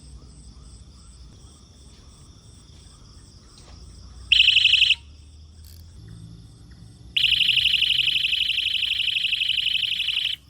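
Electronic buzzer of a modified fishing bite alarm going off with a high-pitched, rapidly pulsing tone. It gives a short burst of about half a second around four seconds in, then a longer burst of about three seconds starting about seven seconds in.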